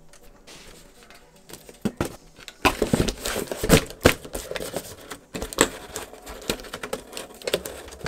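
A cardboard box being set into a steel wire bike basket and an elastic cargo net stretched over it and hooked on: a run of knocks, scrapes and clicks of cardboard, net and clips against the wire, starting about two and a half seconds in.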